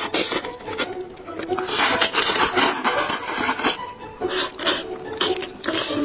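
Close-up eating sounds: a person biting and chewing braised meat, a rasping, crackling run of many short sharp clicks, with a short lull about four seconds in.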